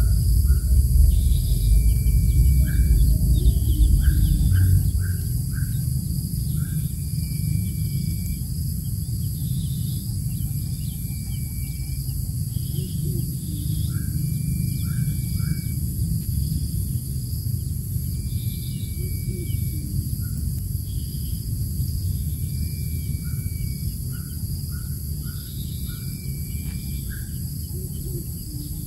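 Birds calling in a regular repeating pattern: a short whistled note every few seconds, with quick runs of three or four chirps in between. Under it run a steady high insect drone and a low rumble that is loudest in the first few seconds.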